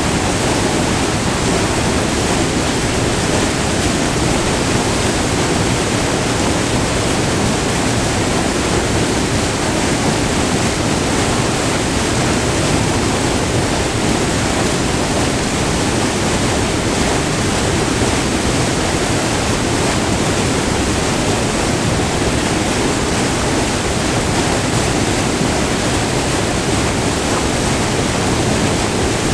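Waterfall: river water pouring over a short, multi-tiered fall of rock, a loud, steady rush of white water.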